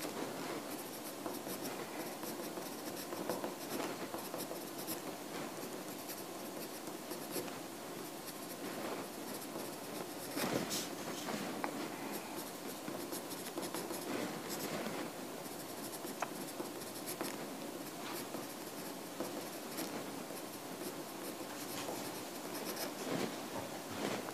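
Writing by hand on paper: continuous scratching of the writing tip across the page, with a few light taps.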